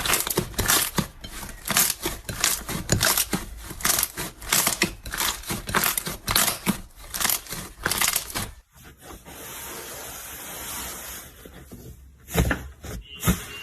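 Slime being squeezed and poked by hand, giving a quick run of crackling pops and clicks, then a softer hiss for a few seconds before a few more pops near the end.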